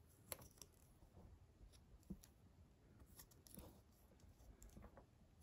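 Faint scattered clicks and light scratching of fingers handling small LEGO plastic parts, with the sharpest clicks about a third of a second in and about two seconds in.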